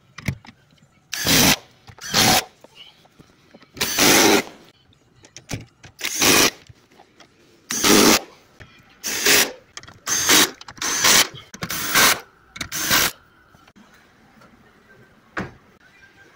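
Red cordless driver running the seat-rail bolts on the floor of a Volvo XC90's cabin in about ten short bursts, each under half a second, with brief pauses between them.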